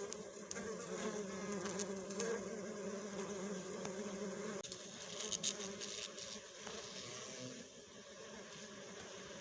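A flying insect buzzing in a steady drone, which eases a little after about seven and a half seconds.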